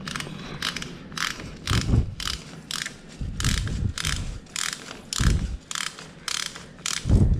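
Ratchet wrench clicking as it tightens the engine oil drain bolt on a Yamaha R15, about two clicks a second, with a few low knocks in between.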